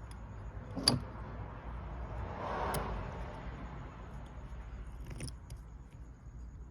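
Rod bearing shell being fitted into an engine connecting rod by hand: a sharp metal click about a second in, a soft scraping rustle in the middle, and a few lighter clicks.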